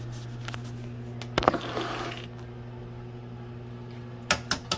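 A hard-boiled egg knocked against a hard surface to crack its shell: one sharp knock with a brief rustle, then three quick taps near the end. A steady low electrical hum runs underneath.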